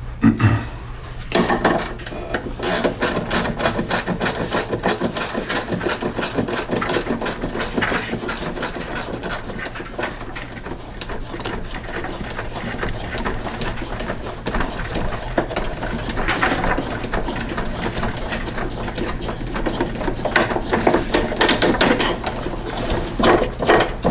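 Ratchet wrench clicking in quick runs as a 7/16 bolt is turned off the mower, with short pauses between the runs.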